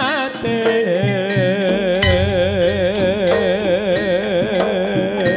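Live music: a singer holds long wavering notes with a strong, even vibrato over scattered drum and percussion strokes. A low bass comes in about two seconds in.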